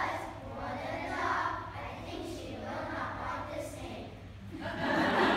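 A children's choir singing. Audience applause breaks out near the end and is louder than the singing.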